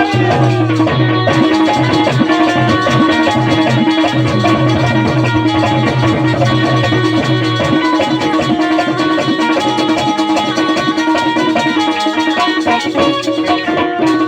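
Instrumental break of a Bundeli rai folk song: fast drumming with rattling percussion over sustained instrumental tones, no singing.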